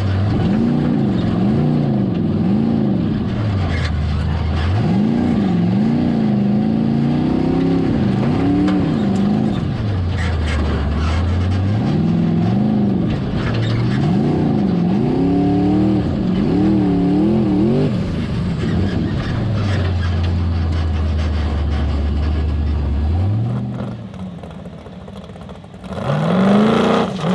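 Formula Offroad car's engine heard from inside the cab, revved hard in quick rising and falling blips, dropping back to a low steady idle three times, the last idle lasting several seconds. Near the end it goes briefly quieter, then gives one sharp rev.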